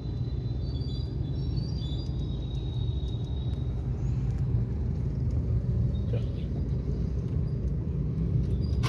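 Steady low rumble of a car driving.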